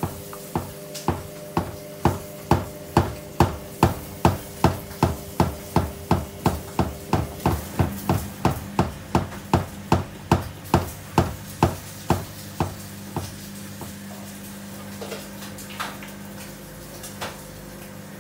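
Samsung front-loading washing machine with its drum turning a load of clothes, thumping about twice a second over the steady hum of the motor. The thumps stop about twelve seconds in, leaving the hum and a few faint knocks.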